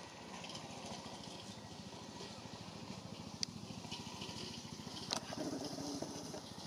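Steady low mechanical hum, like a distant engine, with two short sharp clicks, one about three and a half seconds in and one about five seconds in.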